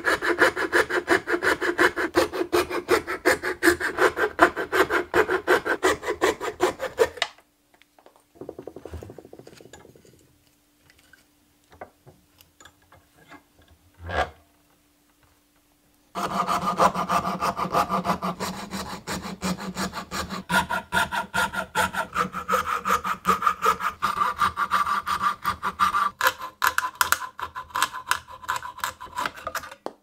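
Coping saw cutting a bird's eye maple blank held in a vise: rapid back-and-forth strokes for about seven seconds, a pause with a brief softer scrape and a single knock, then steady sawing again from about halfway on.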